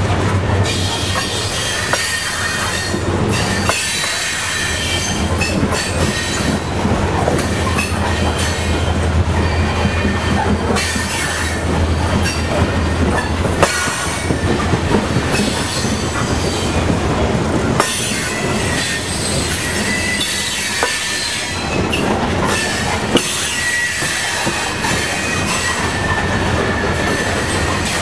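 Coal train's freight cars rolling past close by: steel wheels squealing in thin, wavering high tones, with scattered sharp clicks over the rail joints on top of a steady rumble.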